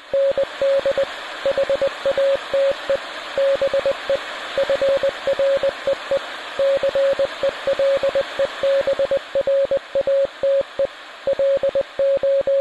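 Morse code: a single steady beep keyed on and off in quick dots and dashes, over a constant hiss of radio static.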